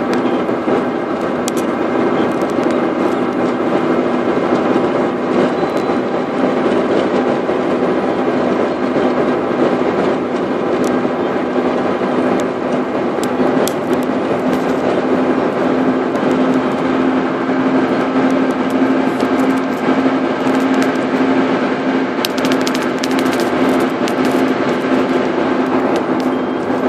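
Car driving at expressway speed: a steady rush of tyre and road noise with a constant low hum from the engine and drivetrain, heard from inside the car.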